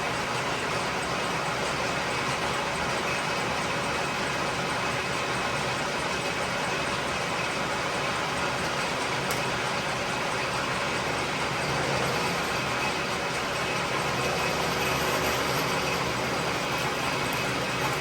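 1943 South Bend lathe running steadily under power, a continuous mechanical drone of motor and gear train, during deep internal thread cutting.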